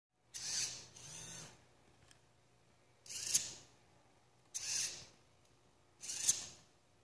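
Hobby servo motors of a small robotic arm whirring in short spurts as the joints move: four spurts about a second and a half apart, each under a second long, with a whine that bends up and down in pitch.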